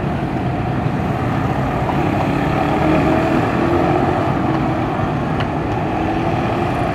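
A passenger train rolling away over curved track and points: a steady rumble with faint wavering tones above it.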